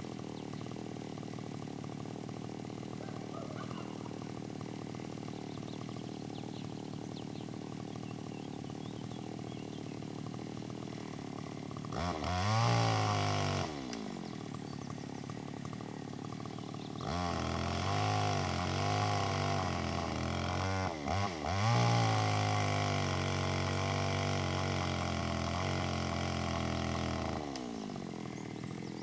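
Two-stroke chainsaw idling steadily, revved briefly about twelve seconds in, then held at full throttle for about ten seconds as it cuts through an oak log, its pitch dipping and wavering under load, before dropping back to idle near the end.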